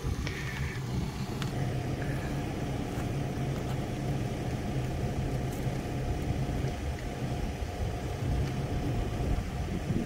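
Engine idling steadily with an even low hum, most likely the machine that carries the quick coupler.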